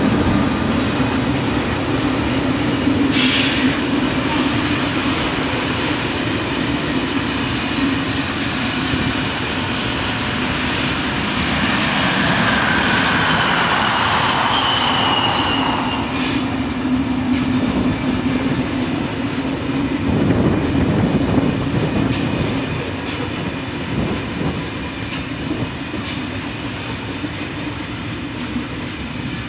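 Locomotive-hauled SNCF passenger train passing close by with a steady hum. About halfway there is a brief wheel squeal, then a rhythmic clickety-clack of the coaches' wheels over rail joints as the coaches roll past.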